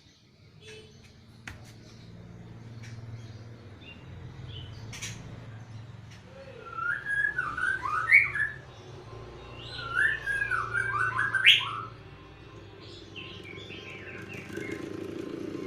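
An electric fan with no guard running with a low steady hum, while a bird sings two short warbling phrases about seven and ten seconds in, with fainter notes after them. Near the end a louder mid-pitched hum from the fan builds up.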